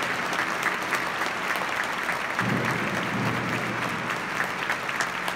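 Large audience applauding: dense, steady clapping for an orchestra taking its bows.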